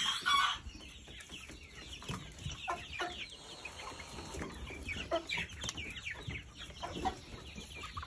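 A flock of chickens clucking, many short calls scattered through, with a louder call right at the start.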